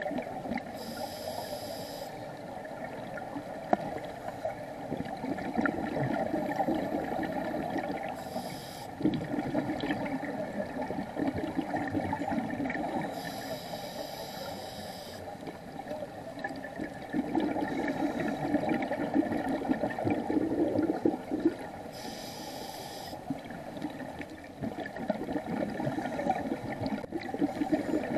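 Scuba diver breathing through a regulator underwater: a hissing inhale three times, roughly every ten seconds, with long bubbling, gurgling exhalations between them.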